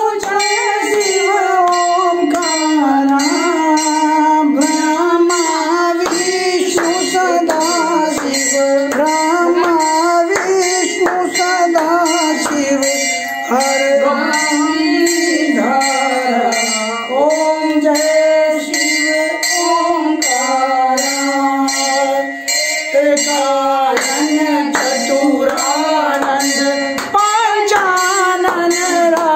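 Hindu devotional aarti song: a singing voice over instruments with a steady beat.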